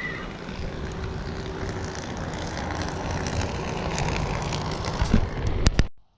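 Steady outdoor rumble and hiss, swelling slightly, with a few sharp clicks near the end before it cuts off abruptly.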